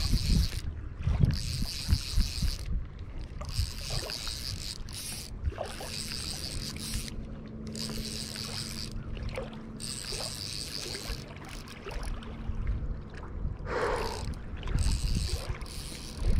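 Fly reel's click drag ratcheting as the handle is cranked, in bursts of a second or two with short breaks while line is reeled in. A low rumble of wind and water lies underneath.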